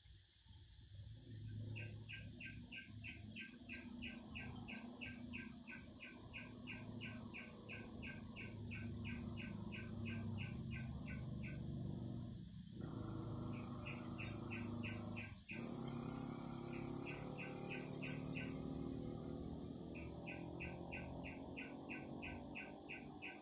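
Cicadas singing: a high, steady buzz that cuts off suddenly near the end. Alongside it runs a series of chirps repeated about three to four times a second, broken by short pauses, over a low rumble.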